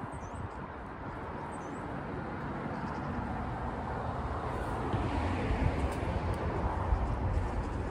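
Wind gusting on the microphone over a steady rush of distant road traffic, swelling somewhat in the second half.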